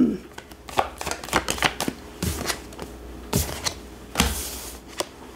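Tarot cards being shuffled and drawn by hand: a string of quick card clicks and slaps, with a few soft thuds of the deck tapped against the table.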